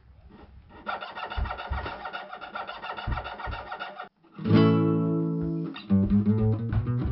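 Guitar music: a fast, busy passage for about three seconds, a brief break, then a loud chord that rings out, followed by separate plucked notes.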